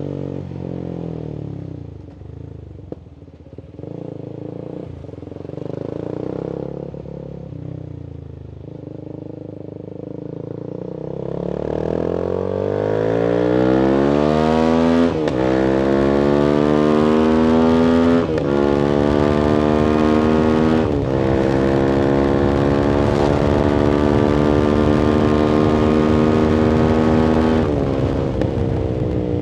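Voge 300AC single-cylinder motorcycle engine with a free-flowing full-system exhaust, reflashed for more fuel. It runs at low revs at first, then accelerates up through the gears with three upshifts a few seconds apart, holds a steady higher-rev cruise, and drops in pitch as the throttle closes near the end.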